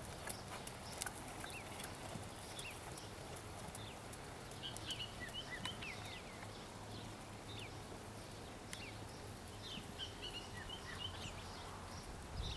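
Faint hoofbeats of a horse working on a sand arena, with bursts of short high chirps about halfway through and again near the end.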